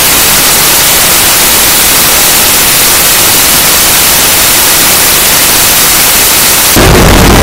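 Harsh noise music: a loud, dense wall of static-like hiss, heaviest in the highs. About seven seconds in it cuts abruptly to a fuller, bass-heavy noise.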